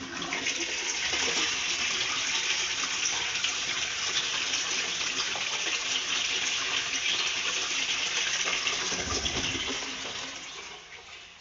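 A TOTO sensor-flush toilet flushing: a steady rush of water swirling through the bowl that tapers off near the end.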